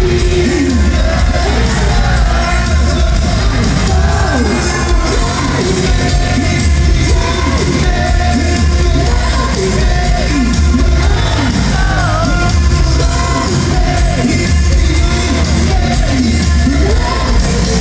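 Rock band playing live in an arena: electric guitar and bass with sung vocals over a heavy, steady low end.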